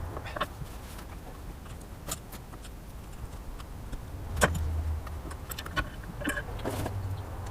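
Scattered light clicks and clinks of tools and small metal parts being handled, with a sharper knock about four and a half seconds in and a brief low hum after it.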